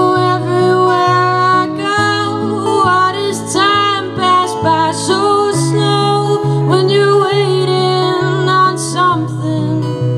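Live performance of a slow acoustic folk song: a woman singing over acoustic guitar, her voice rising and falling with long held notes.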